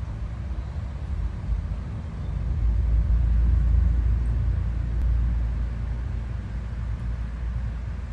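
A steady low rumble that swells and is loudest from about three to five seconds in.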